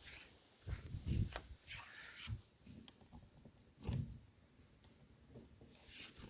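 Lada Vesta's plastic interior door handle being worked, giving a few dull knocks, the sharpest near the middle, with no squeak now that its joints are taped over.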